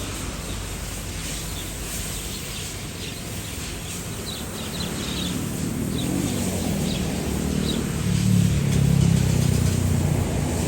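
Low rumble of an airplane flying past, swelling louder over the last few seconds. Small birds chirp a few times in the middle.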